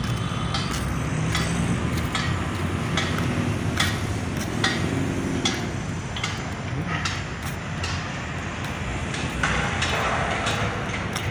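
Steady outdoor background noise with sharp knocks recurring a little under once a second, and a brief rise of hiss near the end.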